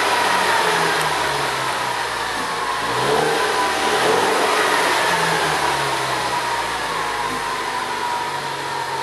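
Ford Mustang's four-cylinder engine running through a custom stainless-steel exhaust with cutout valves, revved several times so the pitch rises and falls between steadier stretches.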